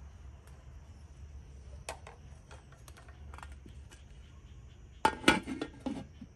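Metal cutlery and dishes clinking: a few light clicks, then a louder cluster of clinks about five seconds in.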